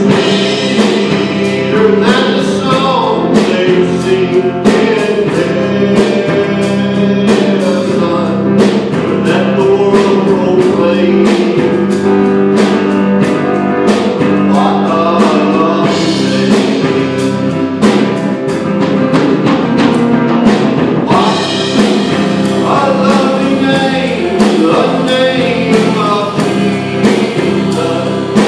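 Live worship song: a strummed guitar with a drum kit keeping a steady beat, and a voice singing in stretches.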